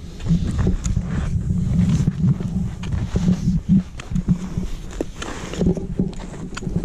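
Footsteps and trekking-pole taps on a packed, icy snow trail, mixed with dense low rumbling and rustling from clothing rubbing against a body-worn camera, with many irregular knocks.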